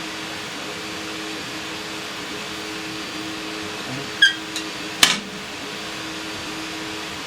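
Steady hum of a fan or air conditioner. About four seconds in comes a light ringing clink, then a second later a sharp knock, as a piece of the antique cash register is picked up and set down.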